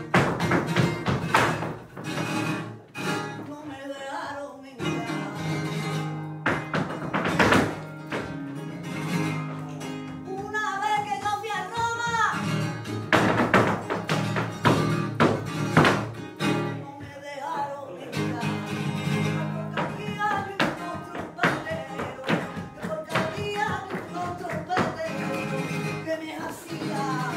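Live flamenco: acoustic flamenco guitar playing, with a voice singing in places and sharp percussive strikes from the dancer's footwork.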